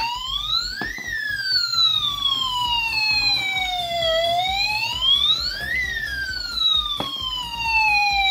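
Toy police car's electronic siren wailing: a single tone rising quickly, then falling slowly, in about two long cycles, with a low rumble underneath and a couple of sharp clicks.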